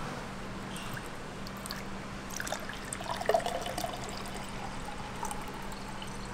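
Water pouring from a large plastic jug into a glass, trickling as the glass fills, over a steady low hum.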